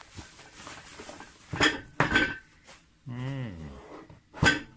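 Sharp knocks and clinks of things handled on a hard tabletop while a bubble-wrapped cardboard box is unwrapped and set down, three of them loud. Between the last two comes a short, low, falling hum from a man's voice.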